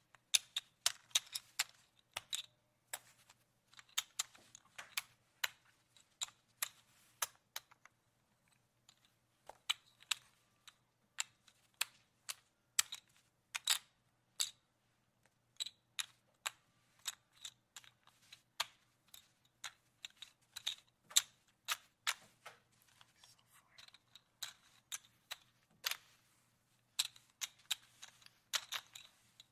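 Casino chips being handled and moved, clacking against one another in irregular clusters of sharp clicks, with a faint steady low hum underneath.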